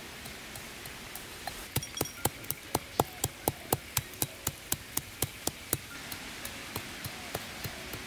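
Stone pestle pounding black peppercorns in a stone mortar: sharp, evenly spaced strikes about four a second, starting about a second and a half in and continuing for about four seconds, then fading to fainter taps.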